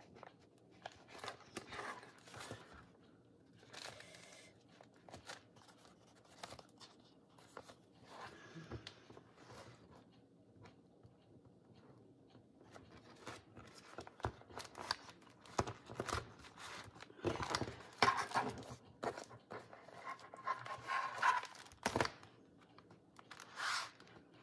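Paper and card rustling and scraping as a hand-bound journal is handled, with the rasp of needle and thread drawn through the pages. The sounds come at irregular intervals and grow busier and louder in the second half.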